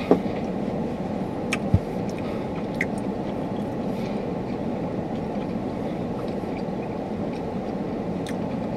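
Steady low rumble of a car idling, heard inside the cabin, with a few light clicks and a short thump about two seconds in.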